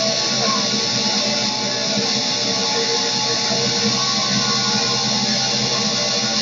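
Loud live noise music: a dense, unbroken wall of guitar sound with held tones and no clear beat.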